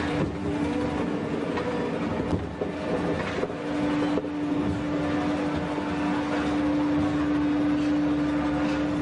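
Roller coaster running on its track: a steady mechanical rumble with a constant hum, growing a little louder about halfway through.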